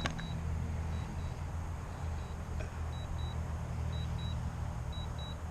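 Drone remote controller's low-battery alarm: pairs of short high beeps about once a second, over a steady low rumble.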